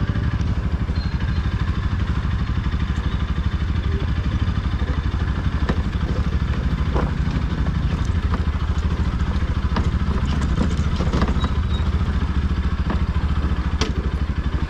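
Bajaj Pulsar NS200's single-cylinder engine running steadily as the motorcycle is ridden off-road, with scattered knocks and rattles from the rough track.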